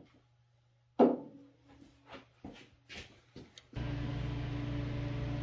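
A sharp knock with a short ringing tone, followed by several lighter knocks and clicks, then a steady mechanical hum that starts about two-thirds in and keeps going.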